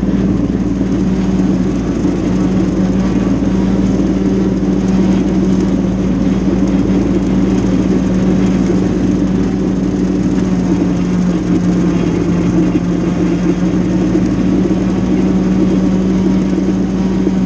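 Mahindra compact tractor's diesel engine running steadily at working speed with a constant hum, driving a brush hog (rotary cutter) through tall grass.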